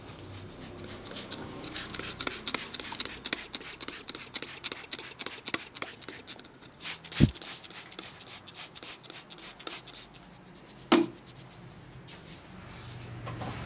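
Barber's hands tapping, slapping and rubbing on a customer's head in an Indian head massage: quick runs of light strikes, with a heavier thump about seven seconds in and another about eleven seconds in.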